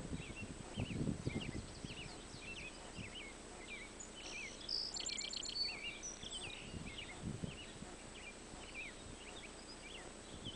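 Songbirds chirping and calling throughout, with a quick rattling trill about five seconds in. A few low rumbles sound near the start and again about seven seconds in.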